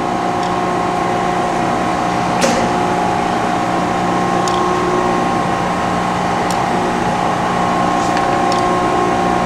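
Brown & Sharpe Micromaster hydraulic surface grinder running, its spindle and hydraulic pump motors giving a steady hum while the table reciprocates. Several sharp clicks come through, the loudest about two and a half seconds in, as the trip dogs reverse the table and the cross feed steps in at each reversal.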